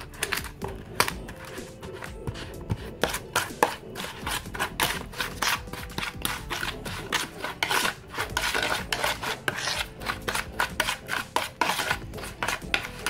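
Metal spoon scraping and clicking against the bottom of a plastic basin, stirring a wet marinade of sauces, garlic and shallots. Many quick, irregular scrapes and taps.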